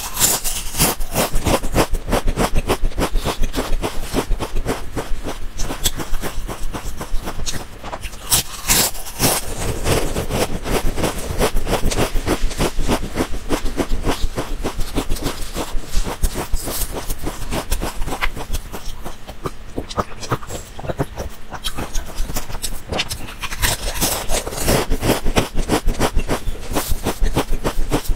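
Close-miked crunching of thin, dry round crisps being bitten and chewed, a dense rapid crackle, mixed with crinkling of the plastic bag as more crisps are picked out.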